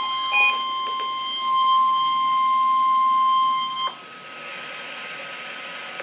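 Weather radio receivers sounding their alert during a NOAA Weather Radio Required Weekly Test: a brief beep, then one steady, shrill tone near 1 kHz that grows louder partway through and cuts off suddenly about four seconds in, leaving a faint radio hiss.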